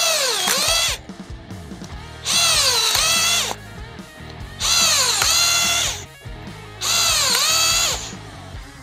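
Electric drill spinning a steel cone-screw wood splitter (Westfalia X-Split) into a pine board in four bursts of about a second each. In each burst the motor's whine dips in pitch as the cone bites into the wood and splits it, then climbs back. Background music plays between the bursts.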